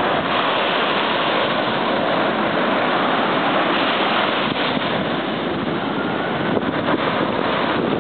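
Steady rush of surf mixed with wind buffeting the microphone.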